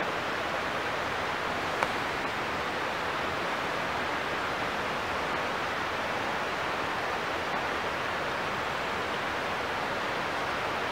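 Steady rush of the Emory River flowing below, with one sharp click about two seconds in.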